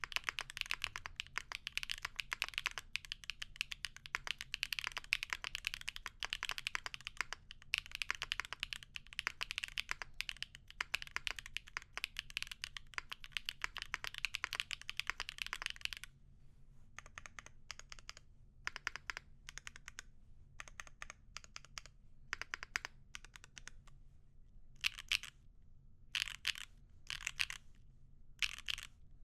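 Typing on a mechanical keyboard fitted with factory-lubed Type R switches in an aluminium plate. There is fast, continuous clacking for a little over half the time, then slower, sparser keystrokes with short pauses, and a few quick clusters of presses near the end.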